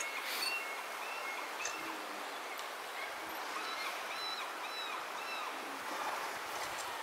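River water running steadily, with repeated short, arched bird calls over it.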